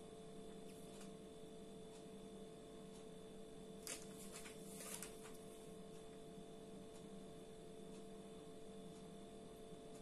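Near silence with a faint, steady electrical hum of a few fixed tones, and two soft ticks about four and five seconds in.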